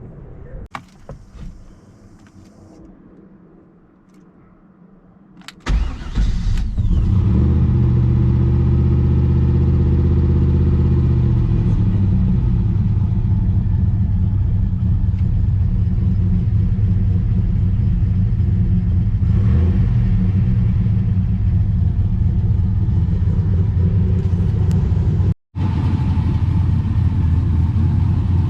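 Turbocharged LS1 V8 in an E36 BMW 325i starting up about five and a half seconds in. It runs a few seconds at a raised cold-start idle, then settles into a steady idle. The sound cuts out for an instant near the end.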